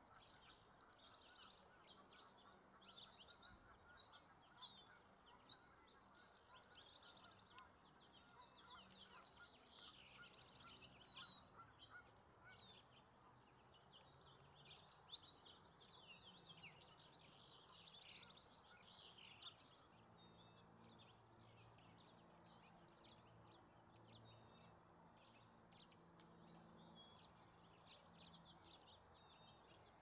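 Faint chorus of many small birds chirping and trilling, with quick rising and falling notes overlapping throughout. About two-thirds of the way in, a low steady hum joins underneath.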